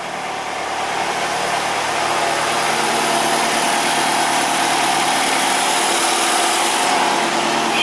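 Dodge Neon's four-cylinder engine idling steadily, freshly started again after its no-start, no-crank, no-communication fault was repaired.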